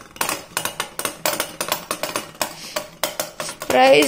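Beyblade Burst spinning tops clattering against each other and the plastic bowl: rapid, irregular clicks and clacks. About three and a half seconds in, a child's held voice starts and is louder than the clicking.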